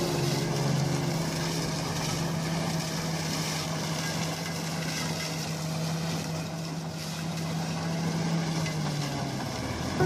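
Lamborghini R653 tractor pulling a SIP Tornado 40 corn harvester, both running steadily as the harvester cuts standing corn, with a low steady hum under an even mechanical noise.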